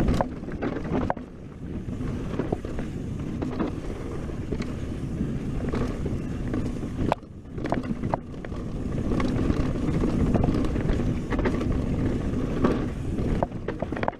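Mountain bike descending a dirt and rock trail at speed: wind buffeting the camera microphone in a steady low rumble, with frequent sharp clacks and knocks from the bike jolting over rough ground. The rumble briefly drops away about seven seconds in.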